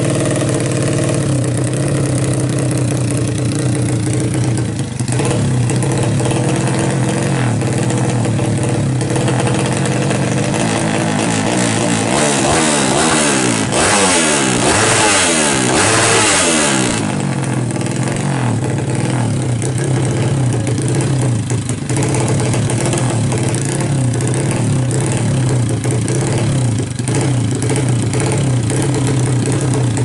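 Single-cylinder four-stroke engine of a Yamaha Jupiter Z drag bike bored up to 200cc, running at idle through an open racing exhaust. About halfway through it is revved several times, rising and falling in pitch and louder for a few seconds, then it settles back to idle.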